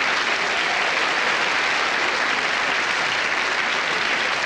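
Theatre audience applauding steadily after a comedian's punchline.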